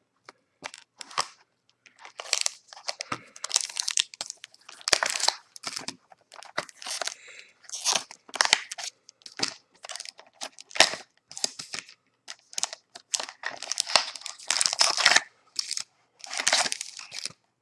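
Crinkling and rustling of the sealed card packs and the cardboard hobby box as they are handled, in a rapid, irregular run of short crackles.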